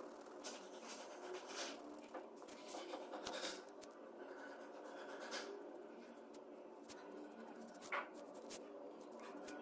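Graphite pencil scratching on drawing paper in short sketching strokes, faint and dry.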